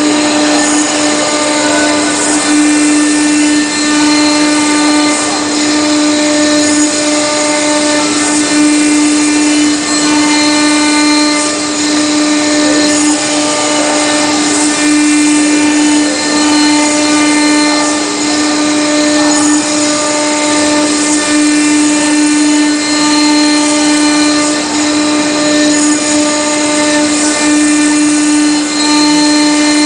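Stone CNC router spindle running steadily at a high, even pitch while its engraving bit grinds a relief into a marble slab. The loud, constant tone carries a gritty cutting hiss beneath it.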